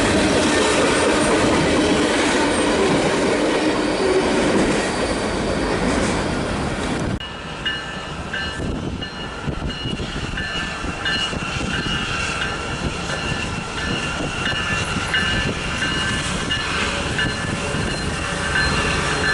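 A train rolling past on the tracks, its rail cars rumbling. About seven seconds in the sound changes abruptly, and steady high-pitched wheel squeal runs on over the rolling noise.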